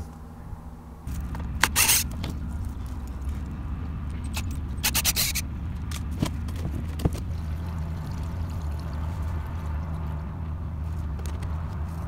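Plastic diesel heater fuel tank being handled and pulled off its wall mount: two short scraping rattles and a couple of sharp clicks, over a steady low hum.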